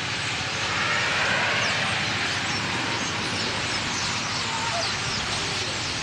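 Huge flock of wintering blackbirds calling all at once: a dense, steady din of countless overlapping chirps and squeaks, over a low rumble of background traffic.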